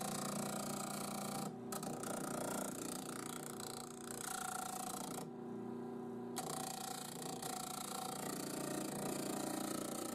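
Disc sander running with a steady motor hum while the edge of a pine board is pressed against the spinning abrasive disc, giving a rough sanding noise in three passes, with brief drops to the motor hum alone at about one and a half seconds and about five seconds in.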